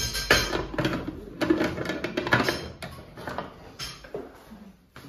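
Dishes and cutlery clattering and clinking on a table in a run of irregular knocks, dying away near the end.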